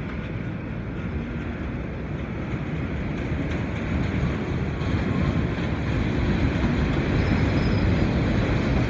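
R68A subway train pulling into an elevated station, its wheels rumbling on the rails and steel structure, growing steadily louder as the cars roll in alongside.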